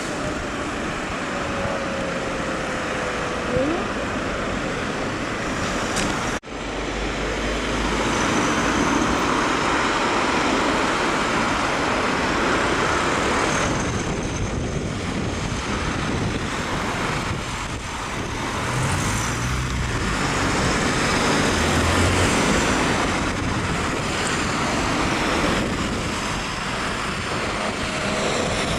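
Street traffic: cars and vans driving past close by, engine and tyre noise on the road, with a short drop-out about six seconds in.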